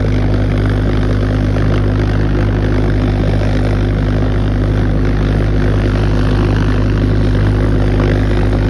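V-1 flying bomb's Argus pulse jet engine running, a loud, steady low-pitched drone that holds unchanged throughout.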